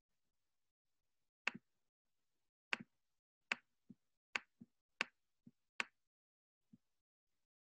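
Clicking at a computer: about seven sharp clicks over some four seconds, most followed quickly by a softer second click, then one faint click near the end.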